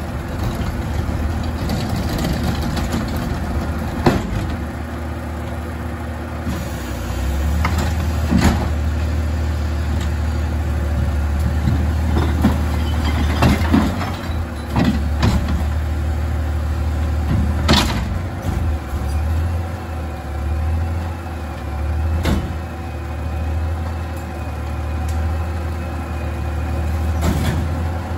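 Engine of a CNG Peterbilt 520 rear-load garbage truck running steadily, getting stronger about seven seconds in as the hydraulics work to lift a commercial dumpster. Several loud metal bangs and clanks from the container are heard, and a thin wavering whine comes in the second half.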